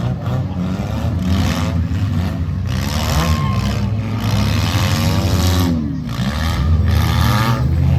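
Several compact demolition-derby cars' engines running hard together, their revs rising and falling in repeated surges.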